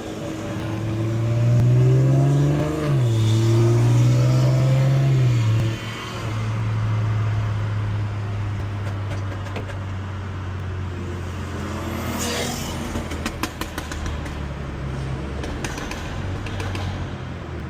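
Turbocharged car engine accelerating hard, its pitch rising, dropping sharply at a shift about three seconds in, rising again, then settling to a steady cruise. Around twelve seconds in come a short hiss and a quick run of sharp clicks.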